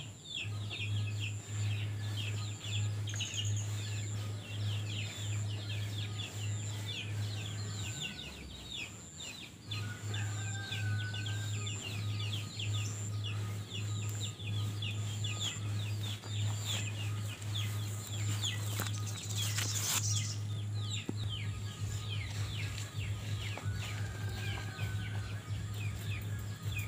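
Birds chirping rapidly and continuously, many short falling high chirps with an occasional lower call, over a steady low hum that drops out briefly about a third of the way in.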